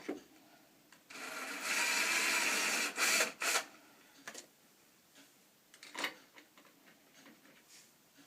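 Power drill running for about two seconds as it bores a pilot hole for a door bolt's screw, followed by a few sharp clicks and knocks.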